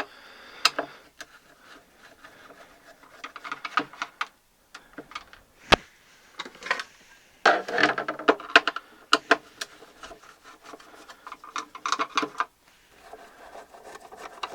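Screwdriver working small Phillips screws out of a turntable's bottom panel: irregular clicks, scraping and light rattling as the screws turn and the case is handled.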